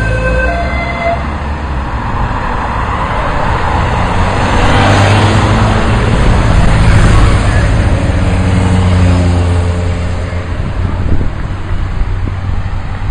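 Police motorcycles and escort cars of a bike race caravan passing at speed. Their engine noise swells to its loudest about five to seven seconds in and then fades.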